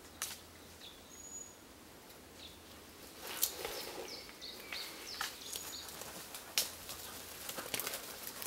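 Scuffs, scrapes and sharp cracks of a person climbing a tree trunk, starting about three seconds in, with the two loudest cracks a few seconds apart. Short high bird chirps sound in the background.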